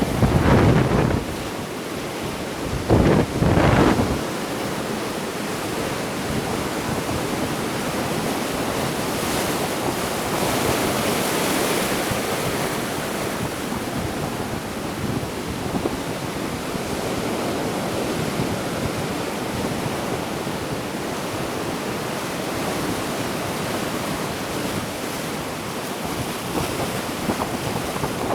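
Ocean waves washing on the shore in steady wind, with a brighter hiss of surf about ten seconds in. Wind gusts rumble on the microphone at the start and again about three seconds in.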